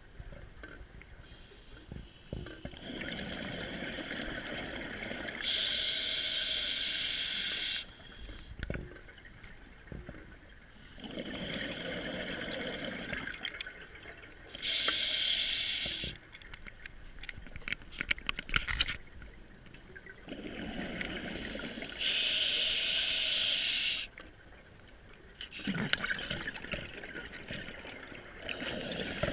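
Scuba diver breathing through a regulator underwater: about four slow breaths, each a hissing draw followed by a louder rush of exhaled bubbles, with crackling bubbles between them.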